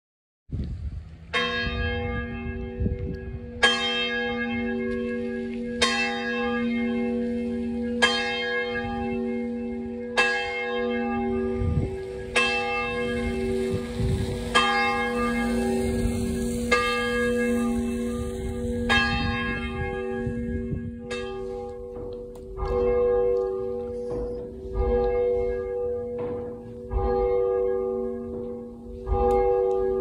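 A single church tower bell rung by hand, each stroke ringing on into the next. The strokes come evenly about every two seconds, then after about twenty seconds come quicker and less evenly.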